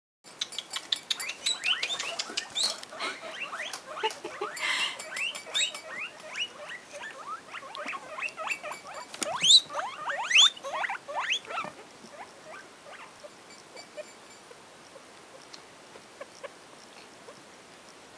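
Guinea pigs wheeking: a rapid string of short, high, rising squeals, loudest about ten seconds in, thinning to a few faint squeaks after about twelve seconds.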